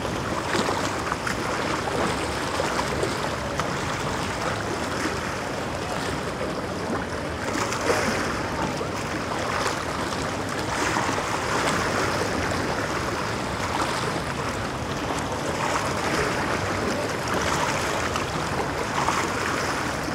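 Sea water washing against the rocks of a jetty: a steady rush that swells every two or three seconds as waves come in.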